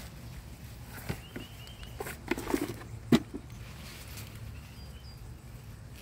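Hand digging through dry leaf mulch and soil, with rustling and crackling and a few sharp snaps between about two and three seconds in, the loudest just after the middle. Faint bird chirps in the background.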